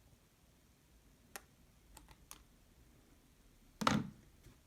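A few faint, sharp clicks spaced out over a quiet background, then a single louder knock near the end.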